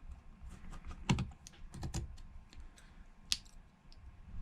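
Irregular small clicks and taps of a precision screwdriver and tiny screws on an iPhone 6's battery connector bracket as the bracket is screwed down. The sharpest click comes about a second in, with another near the end.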